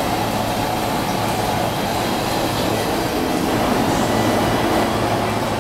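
Outdoor propane burner under a stockpot, running at full flame with a steady rushing noise and a faint low hum, as the water is brought up to a boil.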